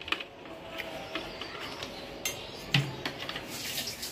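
A few scattered clinks and knocks of steel kitchen pots and utensils being handled, with a faint steady hum behind them.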